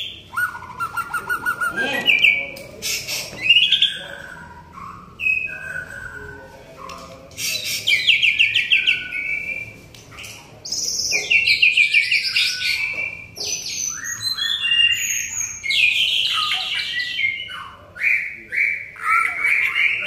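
White-rumped shama (murai batu) in full song, a loud, varied run of rapid trills, whistles and chattering phrases broken by short pauses.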